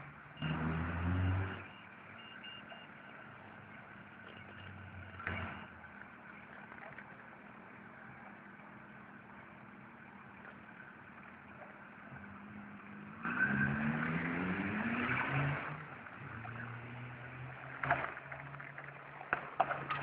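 Road traffic: a vehicle's engine passes about a second in, and another accelerates past about two-thirds of the way through, its pitch rising, over a steady low engine hum. A few sharp clicks near the end.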